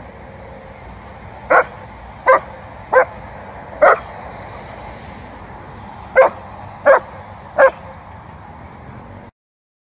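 A dog barking in short single barks during rough tug-of-war play: four about a second apart, a pause of a couple of seconds, then three more.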